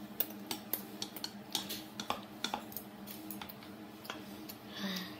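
Chopsticks clicking and tapping against porcelain bowls as noodles are picked up, in irregular light clicks, over a faint steady hum. A short vocal sound comes near the end.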